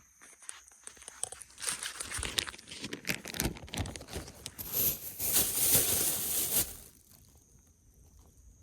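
Irregular crunching and rustling with scattered clicks, building up and loudest between about five and seven seconds in, then dying away.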